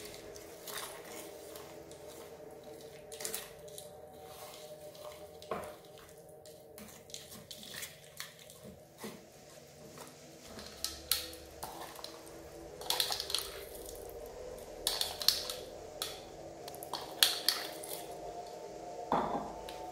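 Plastic spoon stirring sticky red slime packed with foam beads in a plastic bowl: wet clicks, squelches and scrapes of the spoon against the bowl. The sounds grow louder and more frequent in the second half as the slime is mixed, and hands dig into the bowl near the end.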